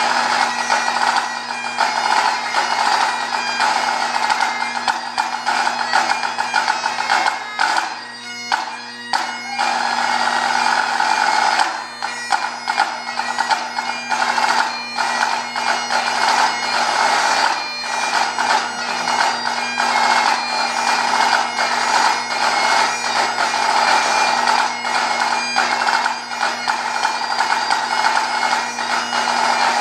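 Great Highland bagpipe playing a tune over its steady drones, with a pipe-band snare drum playing along in quick strokes. The melody drops away briefly about eight seconds in while the drones carry on.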